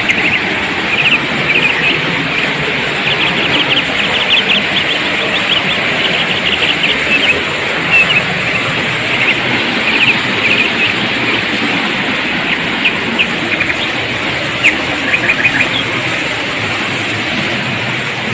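Birds chirping in quick runs of short, high calls over a steady rushing background noise.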